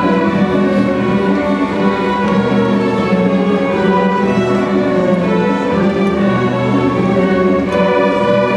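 Middle school string orchestra playing, violins and violas bowing a sustained passage over a held low note.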